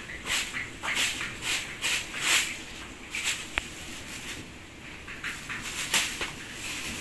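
Long-handled broom sweeping a dirt floor in short swishing strokes, about two a second at first, then fewer, with one sharp tick midway.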